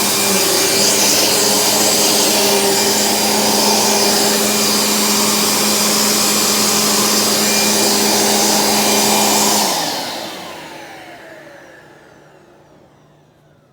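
Dirt Devil Featherlite bagged upright vacuum cleaner's motor running steadily at full speed. About ten seconds in it is switched off, and the motor spins down with a falling whine that fades away.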